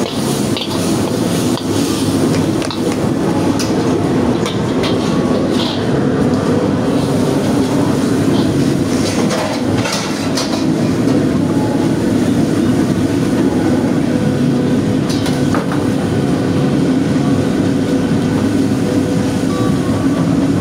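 Steady roar of a commercial kitchen's wok burner and extraction hood, with scattered clanks and scrapes of a metal ladle against the wok as noodles are stir-fried and tossed.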